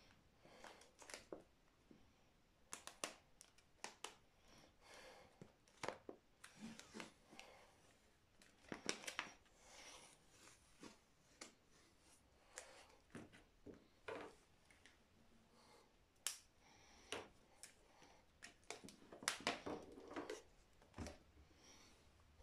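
Black insulating tape being pulled off its roll and wound around a small plastic container, heard as faint, irregular crackles and short rips with light handling knocks.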